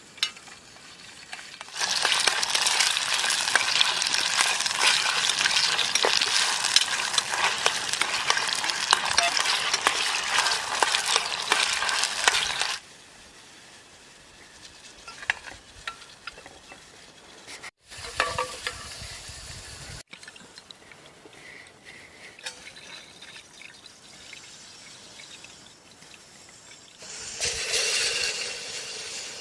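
A loud, crackling sizzle-like hiss lasting about eleven seconds, then much quieter with a few small clicks, and the hiss starts again near the end.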